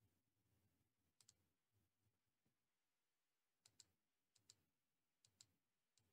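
Faint computer mouse clicks, each a quick press-and-release pair, about five times against near silence.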